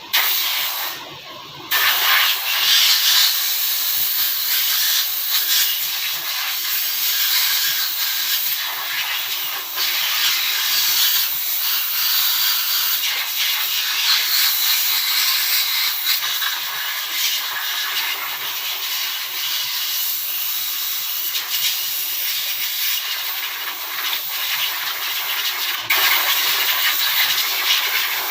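A loud, steady hiss of a pressurized jet, as when blowing off engine parts during an overhaul. It starts abruptly, breaks off briefly about a second in, then runs on with small swells in level.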